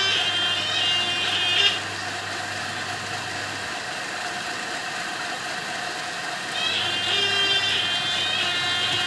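A motor running steadily with a low hum, and a high-pitched whine that fades out about two seconds in and returns in the last couple of seconds.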